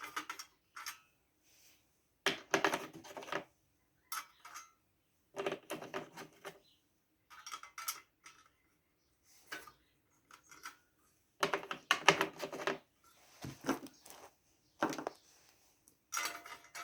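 Small screws and metal engine parts clinking and rattling as they are handled, in several short bursts of clatter with quiet gaps between.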